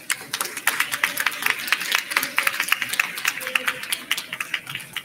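Audience and panel applauding, many hands clapping densely, dying away near the end.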